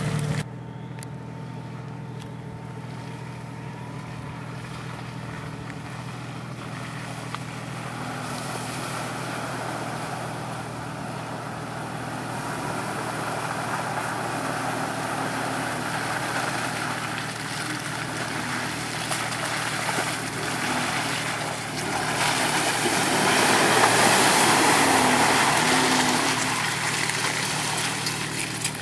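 2012 Jeep Wrangler JK's 3.6-litre V6 running as it drives through mud, with short rises in revs. It grows louder for several seconds about three-quarters of the way through as it nears, then drops off.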